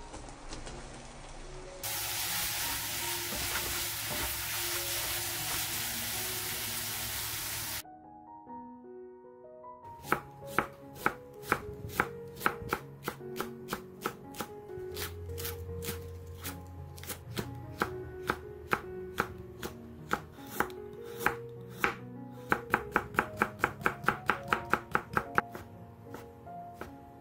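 Food frying in hot oil in a pan, a loud, even sizzle for about six seconds. Then, after a short pause, a kitchen knife chopping on a wooden cutting board through scallions and thin fish cake sheets: separate strokes at first, then a quick run of about five a second near the end.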